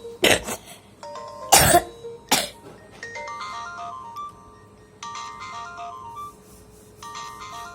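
A Nokia feature phone's ringtone playing: a short melody of quick notes that repeats about every two seconds. Three loud, short bursts of noise in the first two and a half seconds are louder than the tune.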